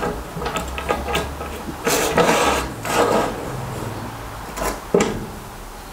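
Aluminium rip fence guide rail being slid along the front of a table saw onto loose bolts: metal scraping and rattling, with a sharp knock about five seconds in.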